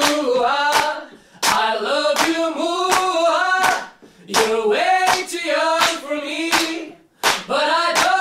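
Pop song with voices singing held, gliding notes over regular handclaps on the beat; the singing breaks briefly about a second, four seconds and seven seconds in.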